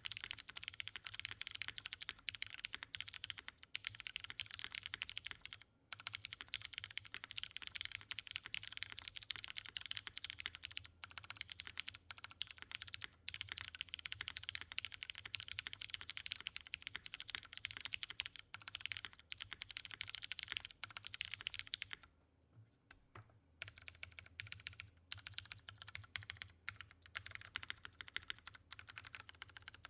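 Custom mechanical keyboard typing: lubed Cherry MX Brown tactile switches on an aluminium plate in a polycarbonate case, with GMK keycaps, in a fast steady stream of keystrokes. After a brief pause about three quarters of the way through, the keystrokes come slower and more spaced out as the modifier keys are pressed.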